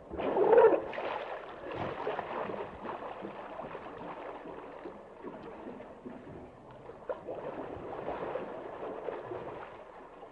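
Hippopotamus sounds in water: a loud gurgling burst about half a second in, then softer gurgling and sloshing that swells again near the end.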